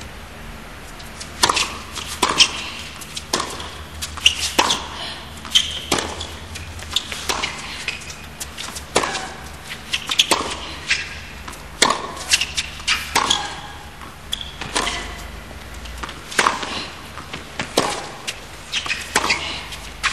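Tennis rally: rackets strike the ball back and forth, with ball bounces in between. The impacts come about once a second and begin a little over a second in.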